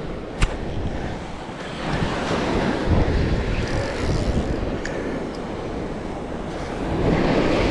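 Gulf surf breaking on the beach with wind buffeting the microphone, swelling louder twice. A single sharp click about half a second in.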